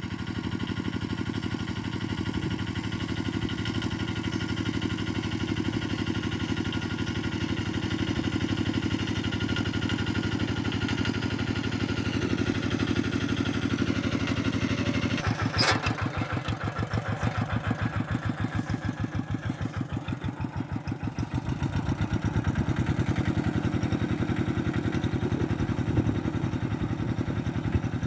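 Walk-behind two-wheel tractor engine running steadily while ploughing. About halfway through there is a sharp click and the engine settles into a slower, pulsing chug. It grows louder again a few seconds later.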